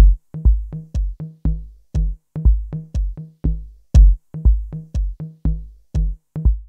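Background music: an electronic drum-machine beat with a deep kick about twice a second and short bass notes between the hits, stopping near the end.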